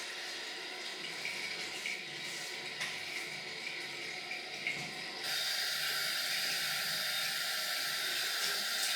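Tap water running into a sink, a steady stream that gets louder and brighter about five seconds in.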